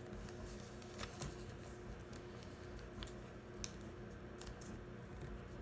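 Origami paper being folded and pressed flat by hand on a table: faint scattered rustles and light ticks of creasing, over a low steady hum.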